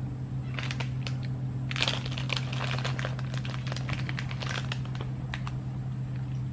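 Crinkling and crackling of a plastic snack bag as chips are handled and eaten, starting about half a second in and getting busier from about two seconds.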